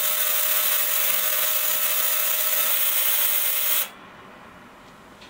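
Digital ultrasonic parts cleaner running with its tank of detergent, a loud steady hiss with a faint steady tone underneath, cutting off suddenly about four seconds in.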